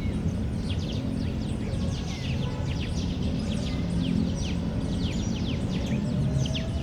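Many small birds chirping in quick, overlapping short chirps, over a steady low rumble of distant city noise.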